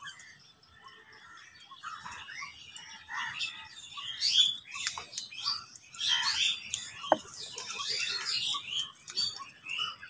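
A flock of house crows calling, many short overlapping caws that grow busier after about two seconds. A single sharp click comes about seven seconds in.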